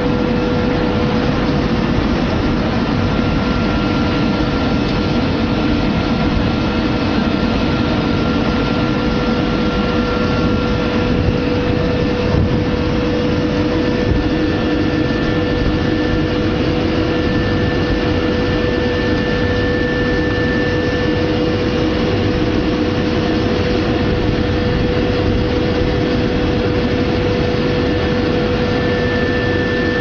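Automatic date bubble-washing machine running: a steady machine hum with a constant whine, over an even rush of churning water and air.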